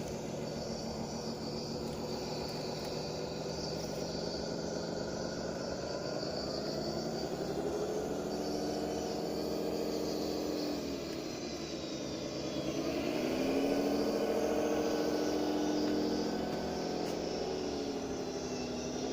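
1:12 scale model bulldozer running. Its pitched motor sound holds steady, dips in pitch about ten seconds in, then climbs back up and stays higher.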